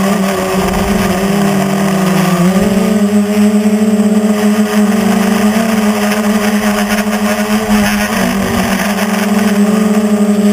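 Quadcopter's electric motors and propellers buzzing close up, heard from a camera on the frame: a steady whine whose pitch dips about a second in, rises again near three seconds, and dips briefly around eight seconds before climbing again, with wind noise over the microphone.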